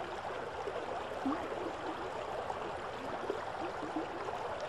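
Steady wash of river water with small gurgles scattered through it.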